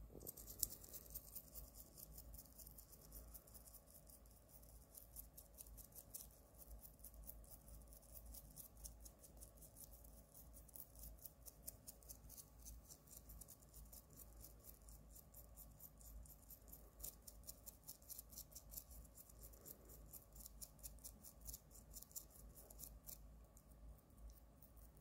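Toothbrush bristles scrubbing a cat's teeth: faint, rapid scratchy brushing strokes, many a second.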